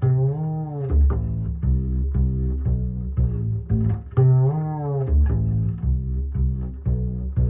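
Background music: a deep plucked bass line in a steady rhythm of short notes, with a long sliding melodic note that bends up and down near the start and again about four seconds in.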